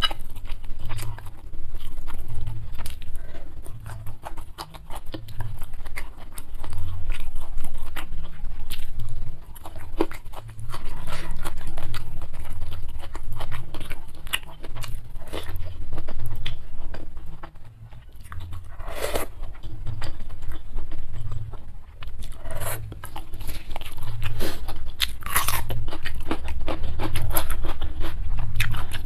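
Close-miked chewing and munching of spicy instant fried noodles with sardines, in a steady rhythm, with a few louder crunchy bites in the second half.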